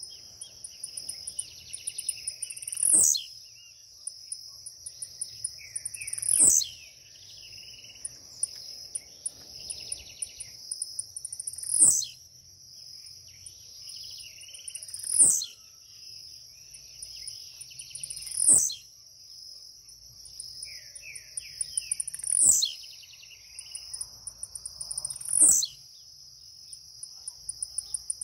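Blue-black grassquit (tiziu) singing its short, sharp, high song note seven times, one every three to four seconds. A steady high insect chirring runs underneath.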